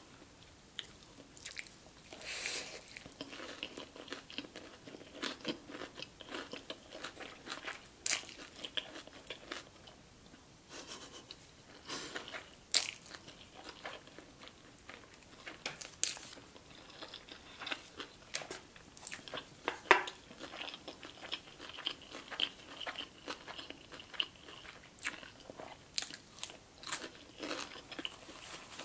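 A person eating spicy Samyang Buldak instant noodles: slurping them in and chewing, with many short, sharp mouth clicks and smacks throughout.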